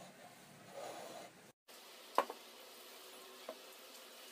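Quiet room tone with a short cut-out of the sound, then a sharp light click about two seconds in and a fainter click a little over a second later.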